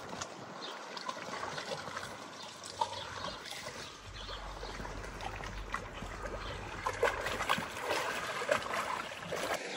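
Lake water lapping and splashing against a stone shore wall: a busy patter of small splashes and trickles that grows louder in the last few seconds.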